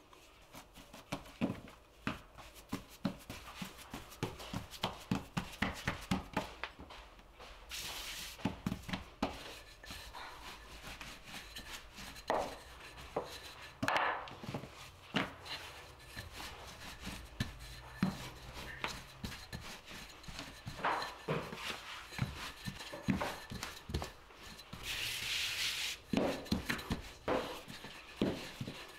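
Noodle dough being worked by hand on a floured countertop: a run of quick soft knocks in the first few seconds, then scattered knocks and rubbing as it is pressed flat. A wooden rolling pin rolls and rubs over the sheet of dough, with a brief rubbing hiss about 8 seconds in and again near the end.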